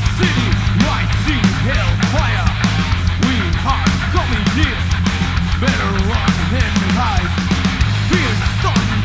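Heavy metal music with no vocals: distorted guitars and bass held on a low note over fast, steady drumming, with bending lead-guitar lines above. The low note shifts pitch about 3 s in and again near the end.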